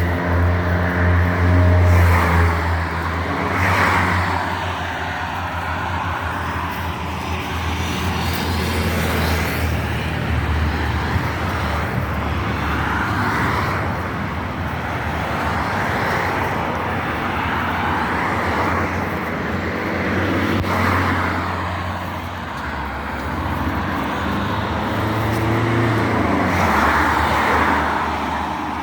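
Road traffic: cars passing one after another, each a rush that swells and fades every few seconds, over a steady low engine hum.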